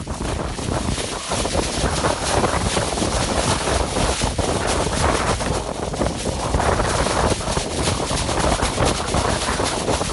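Strong wind gusting and buffeting the microphone, with a loose sheet of thin plastic flapping and crackling in it.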